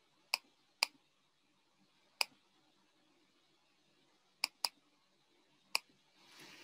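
Computer mouse button clicking: six sharp single clicks at uneven intervals, two of them in quick succession as a double-click a little past the middle.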